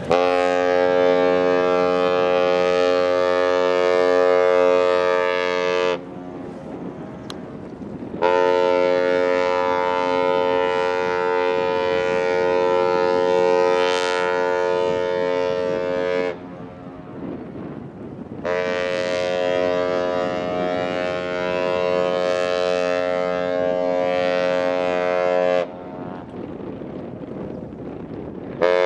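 Ship's horn sounding three long, steady blasts, each six to eight seconds, with a short gap between them and a fourth blast starting near the end. Wind noise on the microphone fills the gaps.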